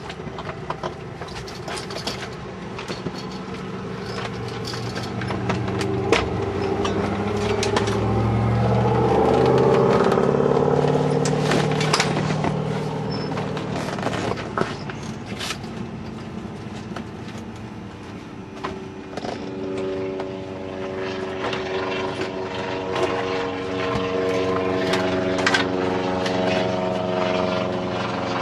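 Cessna 172's propeller engine running, heard inside the cabin: it swells in loudness and pitch to a peak about ten seconds in, eases back, then holds a steadier note from about twenty seconds on. Scattered clicks and knocks sound over it.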